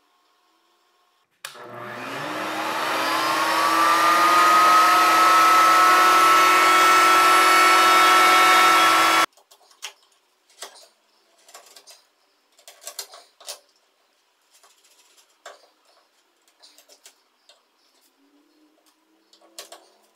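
An electric power tool's motor spins up with a rising whine about a second and a half in, runs at a steady pitch for about seven seconds, then cuts off abruptly. Light scattered knocks and clicks follow.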